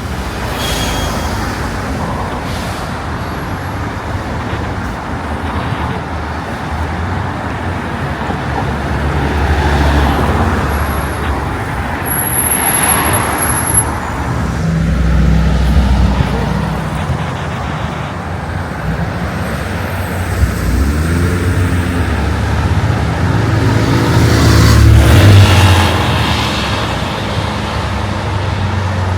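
City street traffic: cars and heavier vehicles passing close by in a steady rumble that swells with each pass. Near the end a large engine pulls away with its pitch rising; this is the loudest part.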